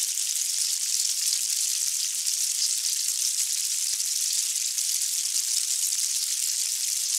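Swarming ants rustling over their nest mound: a steady, high, sizzling hiss.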